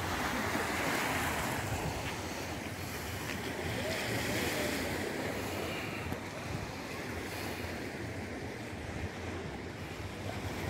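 Small sea waves washing against a stone seawall, the surf noise swelling and easing, with wind buffeting the microphone.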